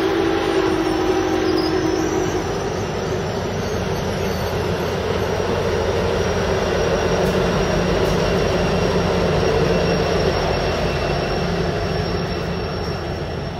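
Passenger train cars rolling past close by, steel wheels running on the rails, with a thin high wheel squeal throughout. A lower steady tone stops about two seconds in. The trailing diesel locomotive, an EMD SD70ACE, then goes by, and the sound starts to fall away near the end.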